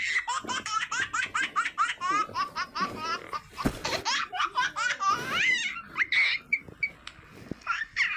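A baby laughing in fast, high-pitched giggles, about five a second at first, then in more scattered squeals.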